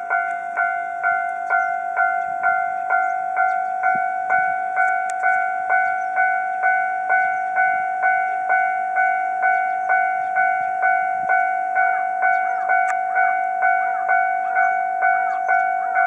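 Japanese railway level-crossing warning alarm sounding, an electronic clanging tone struck about twice a second, signalling that the barriers are down and the crossing is closed for an oncoming train.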